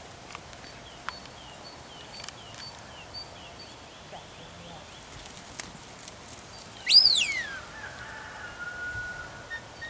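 A herding whistle about seven seconds in: one high note that sweeps up quickly and falls away, trailing into a fainter, lower held note. Faint small-bird chirps repeat in the background before it.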